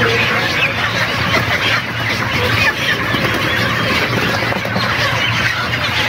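A flock of broiler chickens squawking and clucking continuously, dense and overlapping, as they are caught by hand and crated. A steady low hum runs underneath.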